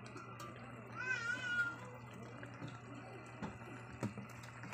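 A cat meows once, about a second in, over a steady low hum.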